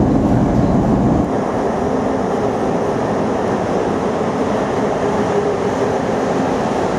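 Chicago CTA Blue Line metro train running, a dense rumble heard from inside the car; about a second in it gives way to the steadier hum and noise of an underground station platform with trains standing.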